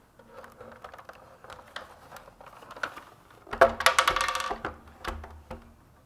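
Plastic housing of a robot vacuum cleaner being handled and turned over on a tabletop: scattered clicks and knocks, with a louder burst of rapid rattling clicks about three and a half seconds in, then a few more knocks.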